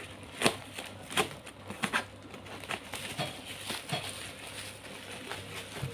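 Plastic parcel mailer bag crinkling and crackling in irregular sharp snaps as it is handled and turned over, over a low steady hum.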